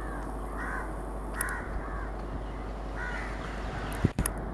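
Crows cawing, several short harsh calls one after another, with a brief thump about four seconds in.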